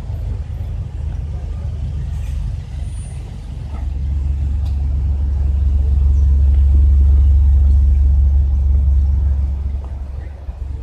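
Low engine rumble of cars and trucks idling in a stop-and-go border-crossing queue. It swells much louder about four seconds in and eases off again near the end.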